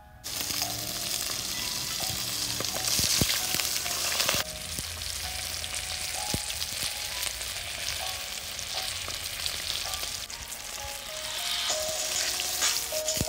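Whole fish frying in hot oil in a metal pot: a loud, continuous sizzle, with a few sharp clicks from the metal fork turning the fish.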